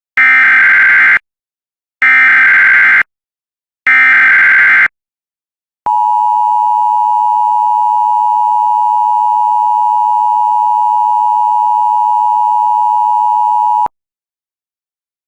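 Emergency Alert System SAME header: three one-second bursts of warbling digital data tones, about a second apart, then from about six seconds in the steady EAS attention-signal tone. The tone holds for about eight seconds and cuts off abruptly.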